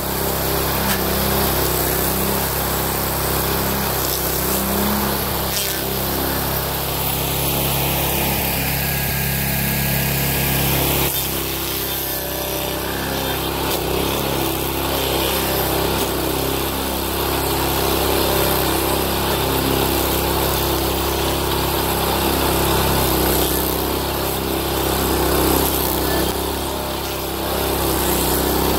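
Homemade stump grinder at work: a Honda GX390 single-cylinder four-stroke engine running steadily under load, driving a Leonardi M1 Blueshark cutter wheel that grinds into a hardwood stump and throws wood chips.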